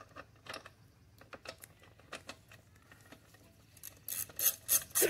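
A few faint handling clicks, then from about four seconds in a quick, even run of sharp metallic clicks, about four a second, as a socket ratchet is worked on the mower's screws.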